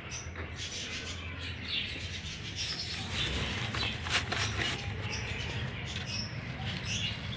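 Small birds chirping faintly over a steady low outdoor hum, with a few brief light knocks and rustles from the handheld camera about halfway through.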